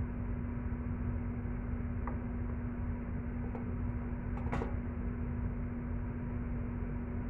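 Steady low hum and hiss of kitchen background, with a few faint clicks and one light tap about four and a half seconds in from handling a green capsicum and the dishes around it.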